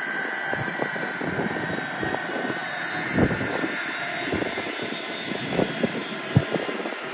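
Qantas Airbus A380's four Rolls-Royce Trent 900 jet engines at takeoff thrust as the airliner rolls down the runway: a steady jet roar with a high whine. Wind buffets the microphone in irregular thumps.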